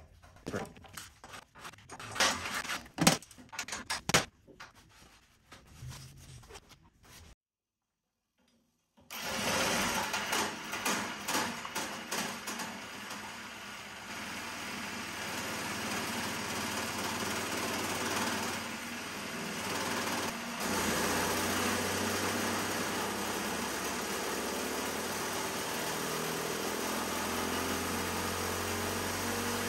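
Irregular clicks and knocks of hand work on a small kart engine, then, after a brief cut, the MRE 224 single-cylinder kart engine running on a dyno. It runs steadily, its pitch creeping slowly upward near the end.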